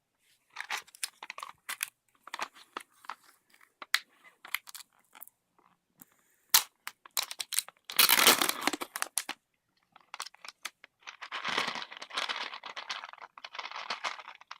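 A small plastic snack packet being handled and torn open: scattered crinkling and crackling, a loud tear about eight seconds in, then a longer stretch of rustling packaging.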